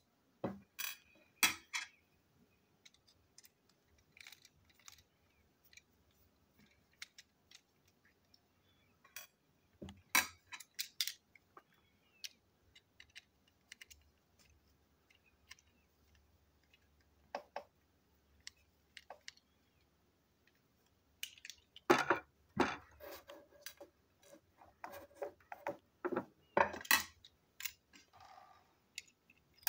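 Irregular clicks and light knocks of a small plastic toy train chassis and its tiny screws being handled, unscrewed and set down on a table as it is taken apart. A few sharper knocks stand out, with a busy flurry of them near the end.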